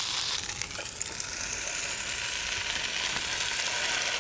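Butter-rich Liège waffle dough sizzling on the hot plates of a Fri Fri electric waffle iron, a steady hiss with a few light clicks from the iron's handle and lid.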